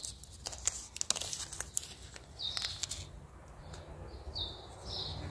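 Paper seed packet crackling and rustling as it is worked open by hand, in quick sharp strokes that stop about three seconds in. From about halfway, a small bird chirps repeatedly, a short note every half second to a second.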